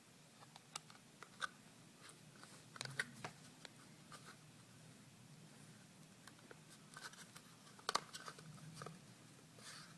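Scattered light clicks and taps of hands handling a laptop's parts during a hard drive installation, about a dozen irregular ticks with a sharper click near the middle and another near the end, over a faint low hum.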